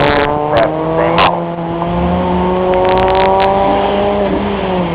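A car engine held at high revs under acceleration, its pitch climbing slowly for about four seconds and then dropping away as the throttle is lifted. A few short, sharp clicks come near the start and about three seconds in.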